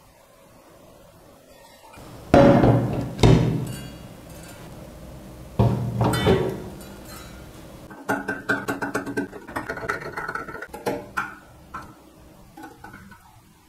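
Heavy amplifier modules on finned aluminium heatsinks set down on a metal chassis plate: two pairs of loud, ringing metal clunks a few seconds in. Then a rapid run of small metallic clicks and scraping as screws are driven into the chassis with a screwdriver, tapering off to a few scattered clicks.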